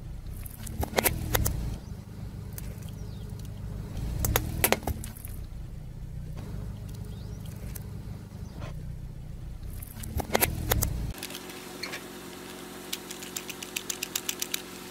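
Car tyre rolling over a plastic toy rattle over a low engine rumble, with a short burst of plastic cracking and clicking as it is crushed, heard three times. Near the end the rumble stops and a quick run of light plastic clicks follows as the ridged base of a plastic cupcake toy is twisted by hand.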